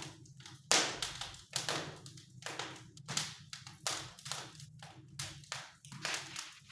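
Wood fire crackling in a newly built fireplace on its first firing: irregular sharp cracks and pops, two or three a second.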